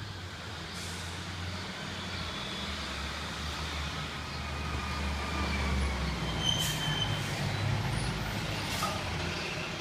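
School bus engine running in the street, a steady low hum that grows louder, with a short high squeal about six and a half seconds in.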